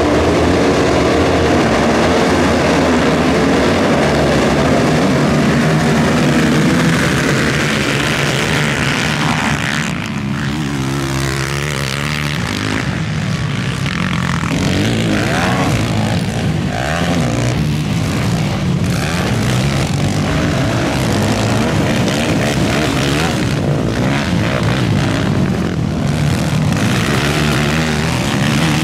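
ATV racing engines running hard, revving up and down with rising and falling pitch as the quads race around a dirt track.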